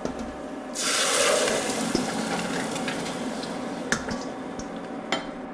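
Crushed canned tomatoes poured into hot olive oil in a stainless steel saucepan. A loud sizzle breaks out about a second in and settles into a steady sizzle. A couple of sharp metal clinks come from the utensil and bowl against the pan.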